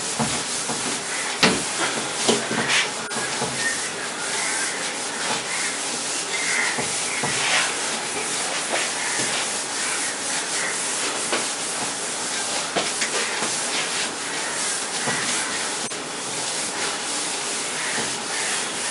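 A cloth rubbing across a whiteboard in repeated wiping strokes, erasing marker writing.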